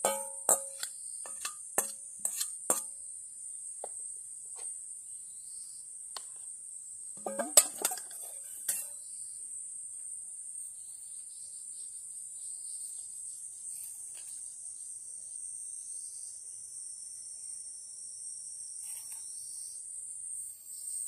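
Steady high-pitched chirring of field insects throughout. In the first few seconds, a stainless steel bowl gives sharp clinks and taps as salad is tipped out of it. About 7 to 9 seconds in comes a brief burst of knocks and rustling, the loudest moment.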